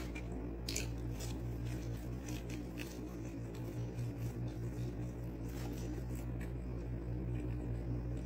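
Short paper rustles and crinkles of fast-food packaging as French fries are picked out of their carton and eaten, over a steady low hum.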